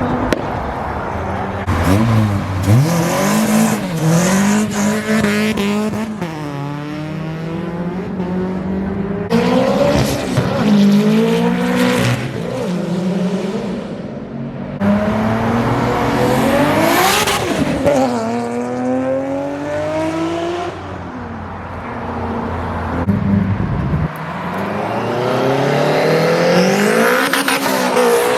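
Performance car engines revving hard and accelerating, the engine note climbing in pitch and dropping back again and again as they pull away and shift.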